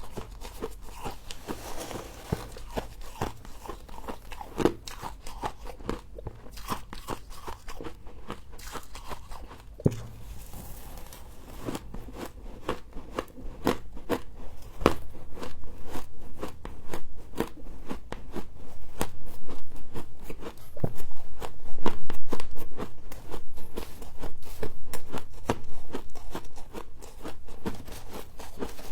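A person biting and chewing humidifier frost close to the microphone: a dense run of crisp little crunches that grow louder and come faster about halfway through.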